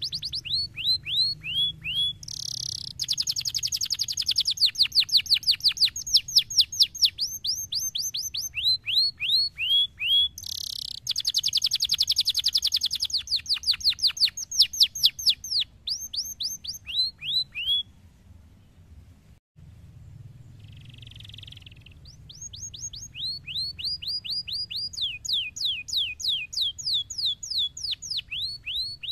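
Domestic canary singing: long rolling trills of rapidly repeated, downward-sweeping whistled notes, changing from tour to tour. The song breaks off for about two seconds two-thirds of the way through, with one short harsh note, and then the trilling resumes.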